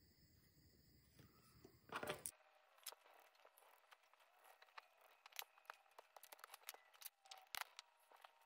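A short rustle about two seconds in, then a run of faint, irregular small clicks and scrapes: a precision screwdriver working the tiny case screws of a Casio G-Shock DW-6600 and the watch being handled.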